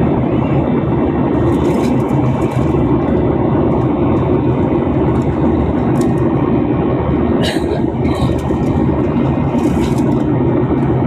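Steady drone of an airliner's jet engines and rushing airflow, heard inside the passenger cabin during the climb after takeoff.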